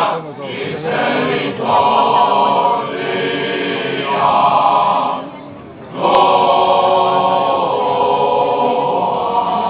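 Choir of men singing together in long held phrases, with a short break a little over five seconds in.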